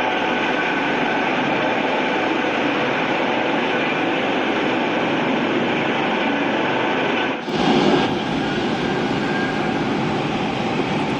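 Helicopter overhead, heard as a steady wash of engine and rotor noise with no distinct blade beat. About seven and a half seconds in it briefly drops out and jumps back louder where the recording is cut.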